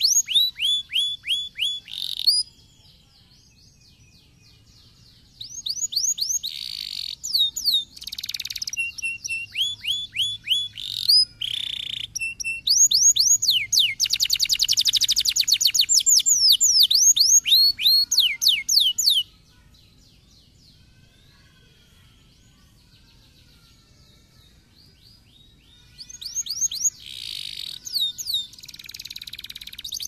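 Domestic canary singing in bouts of rapid, high, falling whistled notes and fast trills, with pauses of a few seconds between bouts. The longest bout, in the middle, runs into a very fast trill.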